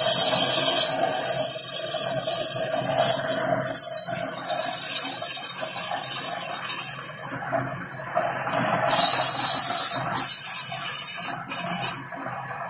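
Wood lathe running with a steady hum while a hand-held turning tool cuts into the spinning wooden bottle's neck, giving a hissing scrape in bursts. The scraping is loudest for a few seconds near the end, then cuts off suddenly.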